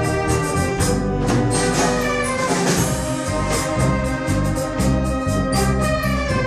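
Brass and wind orchestra playing a Latin number live: clarinets and saxophones over brass and a bass line, with a steady percussion beat.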